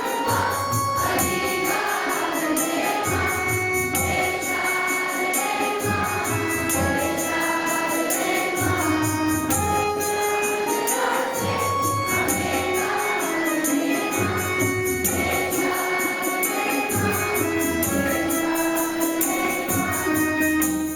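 Group singing of a devotional song, held melodic lines over jingling percussion that keeps a steady beat.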